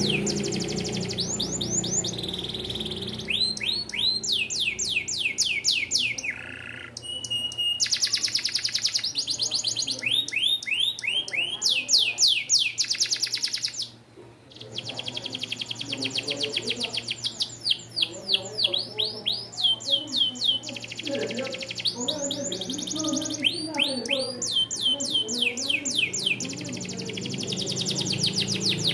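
Domestic canary singing: long rolling trills of fast repeated falling chirps, one phrase after another, with a short pause about halfway through.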